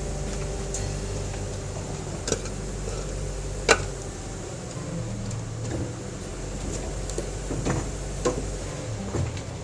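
A motor running with a steady low hum, broken by scattered sharp knocks, the loudest about a third of the way in; the hum stops near the end.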